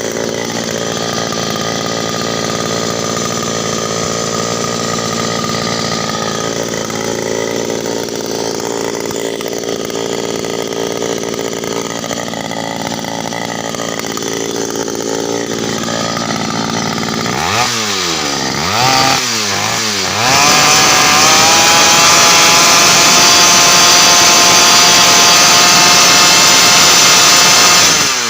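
82cc two-stroke earth auger engine running at a steady, lower speed, then revved up and down two or three times about 17 seconds in. From about 20 seconds it is held at a high, louder, steady speed, dropping briefly at the very end.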